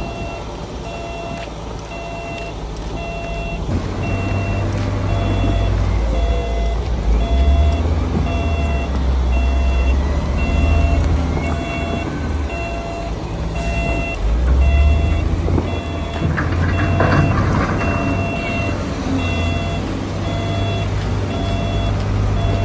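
Heavy diesel engine of a Shantui D31P bulldozer working under load, its low rumble swelling about four seconds in, with a reversing alarm beeping steadily about twice a second.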